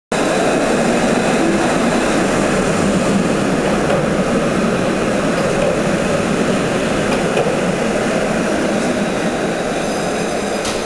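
Alstom Citadis 302 tram rolling into the platform and passing close by, a steady rumble of wheels and running gear that eases off slightly toward the end. A brief click near the end.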